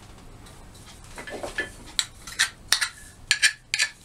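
Metal hand tools clinking and scraping as they are picked up and handled. The sharp clicks start about two seconds in and come a few times a second.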